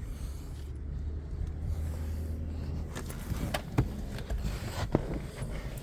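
Low steady hum inside a Lincoln MKZ's cabin. A few sharp clicks come between about three and five seconds in.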